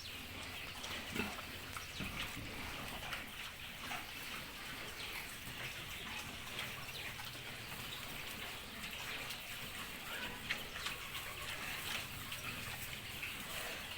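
Piglets grunting and squeaking in a pen, many short calls overlapping over a steady hiss.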